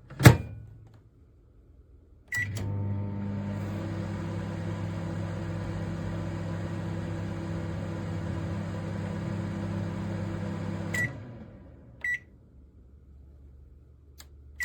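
Samsung MS23K3513AK solo microwave oven: a loud click, then a beep as it starts running with a steady hum and fan noise for about eight and a half seconds. It stops with a beep, a short beep follows, and it beeps and starts up again right at the end.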